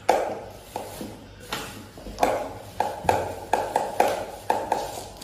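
Trophy case and its plastic wrapping being handled during an unboxing: about ten irregular taps and knocks, each dying away quickly.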